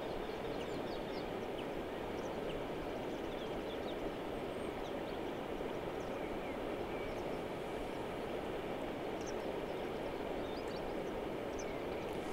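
Steady low rumble of outdoor background noise, with faint, scattered bird chirps over it.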